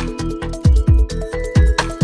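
Electronic background music with a steady beat: deep kick drums and sharp high ticks under held synth tones.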